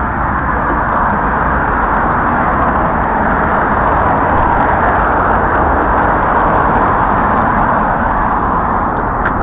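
Steady noise of road traffic, cars driving past on a multi-lane road.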